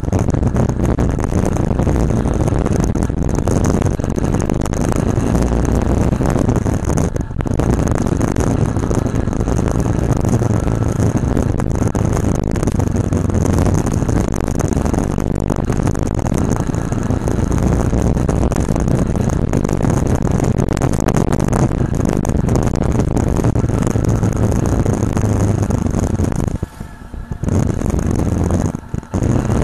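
Motorcycle running at riding speed on a road, heard from a bike-mounted camera: a steady engine note under heavy wind and road noise, which drops out briefly a few times.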